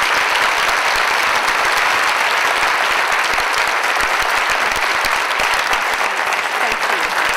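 Large audience of several hundred people applauding steadily at the end of a speech.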